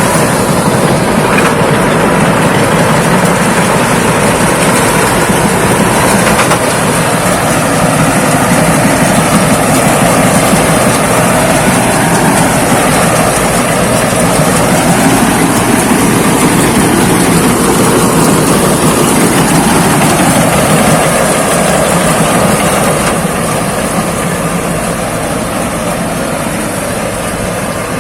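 Rice combine harvester of the Thai Seng 'Chao Phayu' make running loudly and steadily while harvesting, its diesel engine and threshing machinery under load. The pitch rises and falls slowly a few times, and the sound eases off a little about 23 seconds in.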